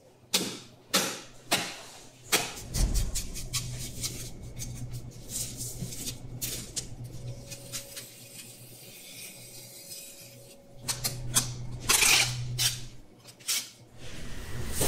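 Knives and a hooked metal tool working a giant bluefin tuna: scraping and cutting through skin and flesh, with many sharp knocks and clicks of metal on the fish and the table, over a steady low hum. The scraping grows louder near the end.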